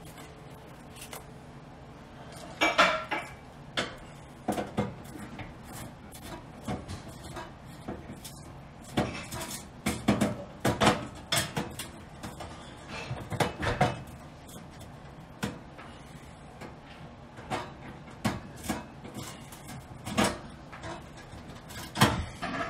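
Irregular metallic clinks, taps and scrapes of a screwdriver and the sheet-metal broiler parts inside a gas oven's cavity as the broiler is unscrewed, coming in small clusters.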